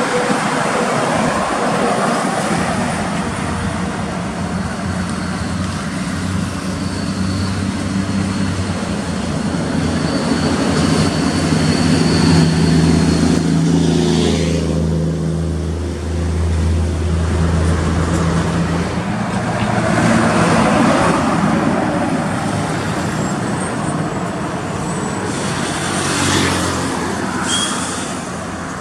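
A heavy vehicle, probably a truck, running with steady low engine tones over continuous road and traffic noise. The engine tones are loudest midway through.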